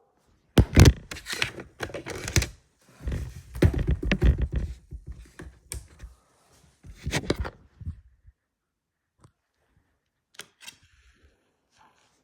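A sound effect played back from a sound-effects CD: a run of heavy thuds and crashing, knocking noise lasting about eight seconds, followed by a few faint clicks.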